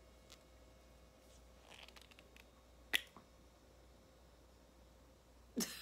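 Quiet handling of a small plastic lip balm tube: a light crinkle and a few soft ticks, with one sharp click about three seconds in.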